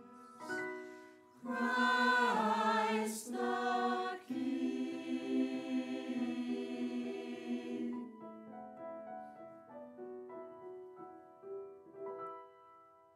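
Mixed church choir singing a hymn in long held notes. About eight seconds in the full singing drops away and softer held notes carry on, fading out near the end.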